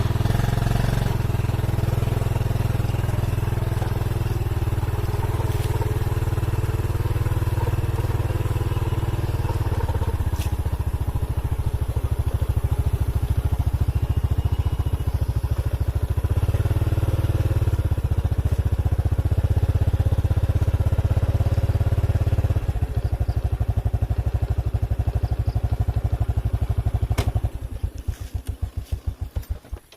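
Motorcycle engine running steadily. Near the end it drops to slow, separate firing pulses and then cuts off.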